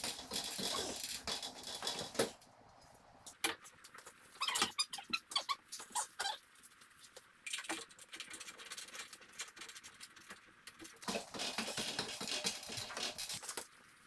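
Metal strut channel being handled and fitted against a timber beam from an aluminium ladder: irregular scraping and light metallic clicks and taps, coming in bursts with short quiet gaps between.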